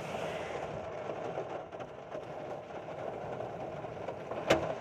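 Rain and hail falling on a vehicle, heard from inside the cab as a steady noise with a few faint ticks of hailstones striking. Near the end a single hailstone hits the vehicle with a sharp, loud crack.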